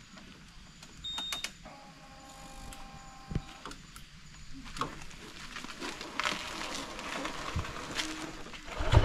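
Faint clicks and knocks with a brief steady whine, then the Honda PCX 150 scooter's engine starts right at the end and runs with a loud, even pulse.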